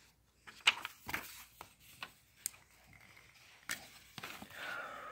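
A few sharp clicks and paper rustles as a felt-tip marker is handled and uncapped. From about four seconds in, the Imagine Ink mess-free marker rubs steadily back and forth across the coloring page.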